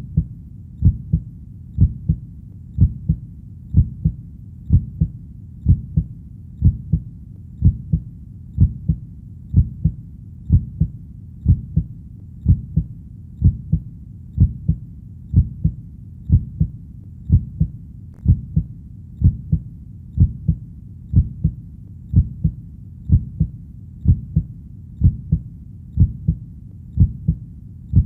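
Heartbeat: a steady lub-dub, each beat a pair of low, muffled thumps, at about one beat a second (around 60 beats a minute), over a faint low rumble.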